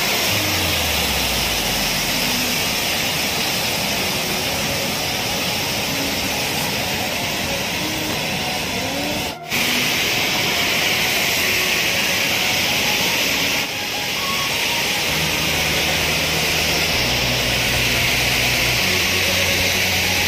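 Waterfall rushing: a steady, loud rush of falling water that breaks off briefly about nine seconds in. From about fifteen seconds in, low bass notes of background music come in under it.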